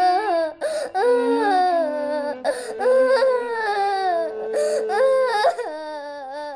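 A boy crying in long, wavering wails that fall in pitch, with short breaks between them.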